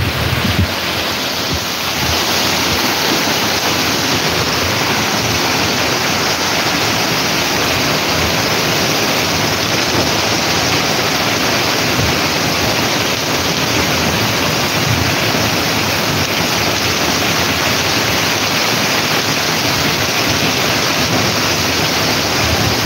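Heavy rain pouring down onto a flooded street: a steady, dense hiss that grows slightly louder about two seconds in.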